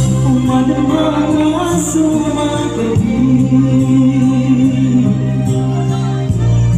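A singer's voice amplified through a microphone and sound system over instrumental accompaniment, holding long notes with vibrato.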